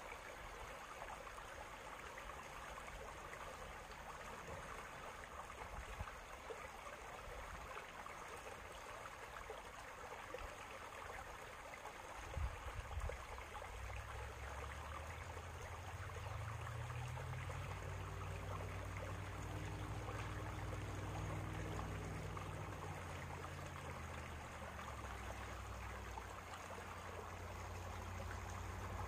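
Shallow stream running over stones, a steady water hiss. About halfway through come a few light knocks, then a low engine drone swells in and lasts to the end.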